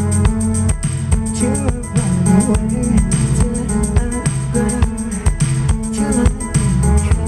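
Live band music: guitar over a steady beat.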